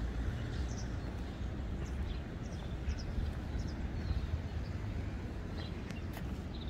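Outdoor park ambience: a steady low rumble with short, high bird chirps now and then.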